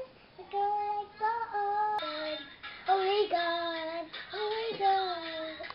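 A little girl singing, holding long notes that glide between pitches.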